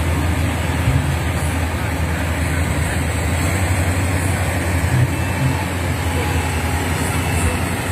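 Crown Sumo 106 combine harvester's engine running steadily with a low, even drone.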